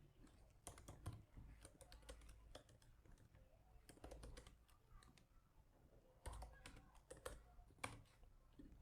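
Faint computer keyboard typing: irregular keystrokes in short runs with pauses between them.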